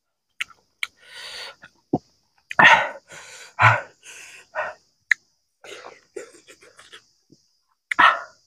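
Close-up mouth sounds of a person eating very spicy food by hand: quick hissing breaths, lip smacks and clicks, and a few loud cough-like exhalations, the last near the end.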